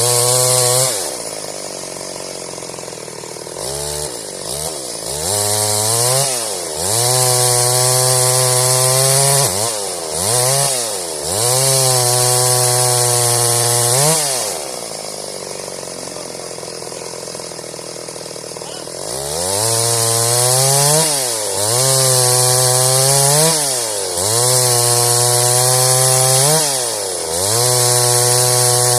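Stihl MS 382 two-stroke chainsaw cutting wood into boards, held at full throttle through long cuts. The engine drops back toward idle for a few seconds twice, and dips briefly between shorter passes.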